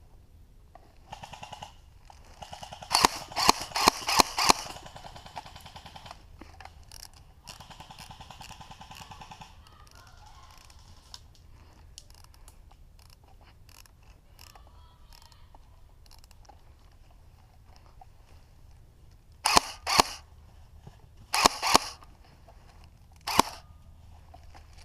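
Airsoft guns firing: rapid, evenly spaced full-auto bursts of clicking, with a cluster of louder sharp cracks about three to four and a half seconds in and three more single loud cracks near the end.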